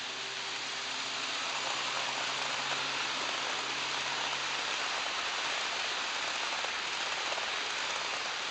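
Model trains rolling past on sectional track: a steady, hiss-like rush of many small metal wheels on the rails. A faint low electric motor hum from the passing locomotives fades out about five seconds in.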